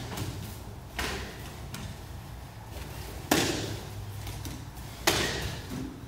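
Full-contact Kyokushin karate sparring: blows landing on the body through the karate gi, three sharp hits about two seconds apart, the last two loudest, each with a short echo of the hall.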